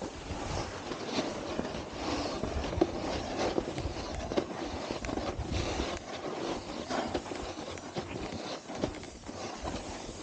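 Snowboard scraping and chattering over hard, icy snow, with many irregular knocks as the board bounces on the ice.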